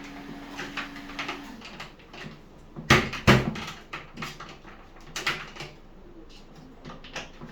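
Scattered clicks and knocks of hands working on something, with two loud knocks close together about three seconds in. A steady low hum stops about a second and a half in.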